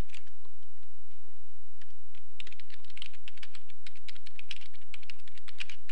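Typing on a computer keyboard: a few keystrokes at first, then a quick run of keystrokes from about two seconds in, stopping just before the end.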